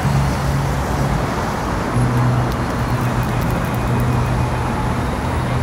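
Steady outdoor background noise: a continuous traffic-like rumble under a low hum that shifts slightly lower and louder about two seconds in, with a few faint high ticks soon after.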